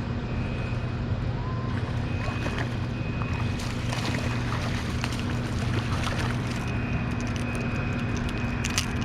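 Electric trolling motor on a fishing boat running steadily, a low hum with a thin high whine that comes and goes, under wind and water noise.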